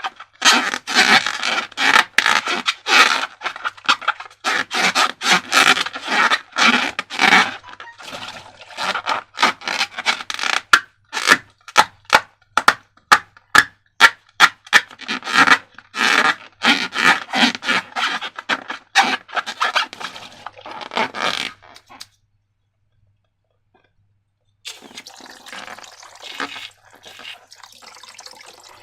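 Slime being squeezed and worked by hand, giving dense wet crackling, clicking and squelching. It stops after about 22 seconds, and after a two-second gap a fainter steady hiss of running water begins.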